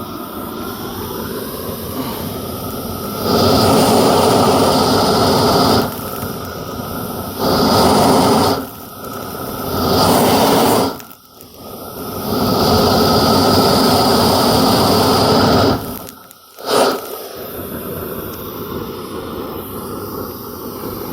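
Propane weed torch burning with a steady noisy flame jet. It surges much louder four times, for a few seconds each, as the turbo-blast trigger is squeezed, then settles back to the lower burn.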